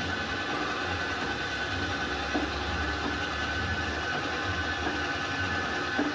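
Metal lathe running steadily while finish-cutting the weld-built-up bush seat of a backhoe loader's swing cylinder: a constant whine over a low hum, with two light ticks.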